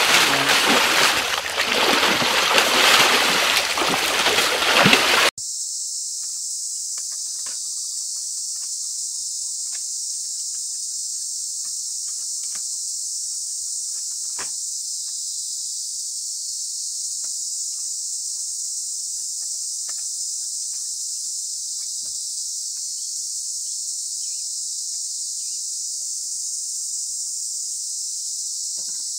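Water splashing and sloshing as someone thrashes in a small bamboo-framed pool, cut off abruptly about five seconds in. Then a steady, high-pitched chorus of insects, with faint scattered ticks.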